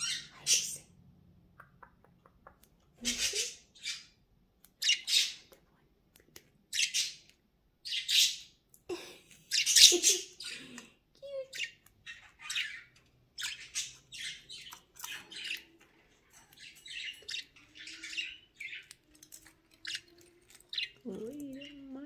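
Budgerigars squawking and chirping: a string of short, sharp calls about a second apart, turning into quicker, busier chatter in the second half.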